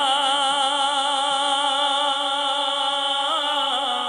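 A man singing a naat unaccompanied into a microphone, holding one long note with a wavering vibrato that moves to a new pitch about three seconds in.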